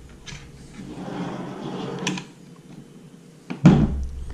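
Hands working plastic fuel-tank fittings: a second of scraping and rustling that ends in a click, then a sharp, loud knock near the end.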